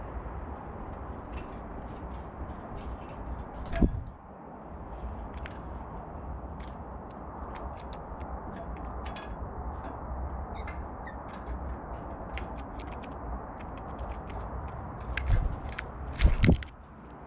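Blue jays landing and moving about right by the camera on the wooden railing: a loud thump about four seconds in and two or three more near the end, with scattered light clicks over a steady low outdoor rumble.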